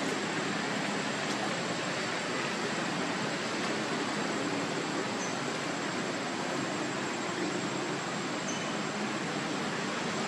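Steady outdoor background hiss with a faint high whine running under it and a few brief, faint high chirps.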